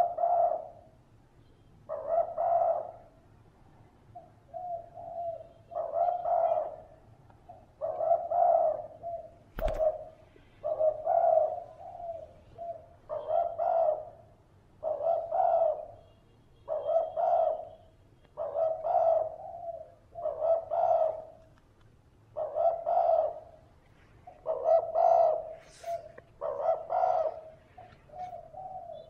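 Spotted dove cooing over and over, one call about every two seconds. A single sharp click cuts in about ten seconds in.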